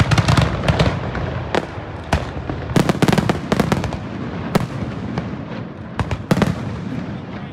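Aerial fireworks shells bursting in a fast, uneven series of sharp bangs and pops. The reports bunch into dense clusters at the start and again about three seconds in, with single bangs between.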